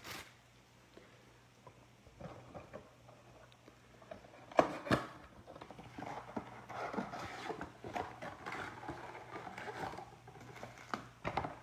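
Cardboard trading-card blaster box being opened by gloved hands: one sharp snap of the box flap a little under five seconds in, then rustling and small clicks as the card packs are pulled out and handled.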